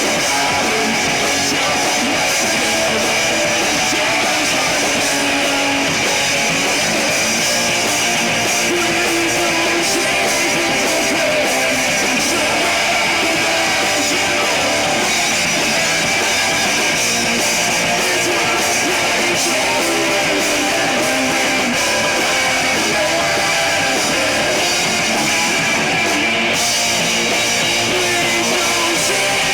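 Live rock band playing a song, with loud electric guitars at the fore.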